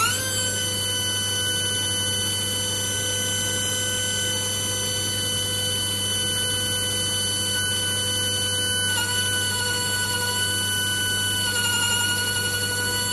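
Air pencil die grinder running at a steady high-pitched whine while grinding the burnt, worn tip of a lathe dead centre. Its pitch dips slightly about nine seconds in and wavers near the end as it bears on the work, over a steady low hum.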